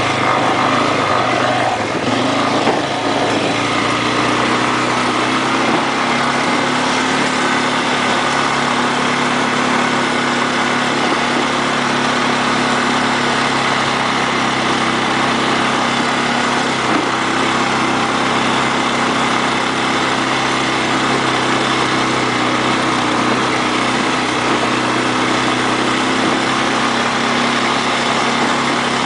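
ATV engine running steadily; its pitch shifts in the first few seconds, then holds even.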